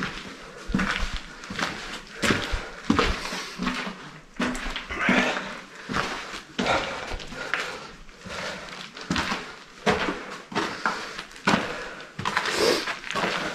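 Footsteps walking at a steady pace, a little more than one step a second, scuffing and knocking over gritty concrete and loose wooden boards. They sound boxy in the narrow concrete passage.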